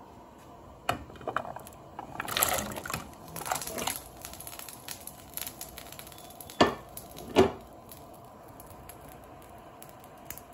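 Kitchen handling of a stainless steel pot: cubes of peeled raw root vegetable clattering and splashing into the water a couple of seconds in, then two sharp knocks of a dish or utensil against the pot.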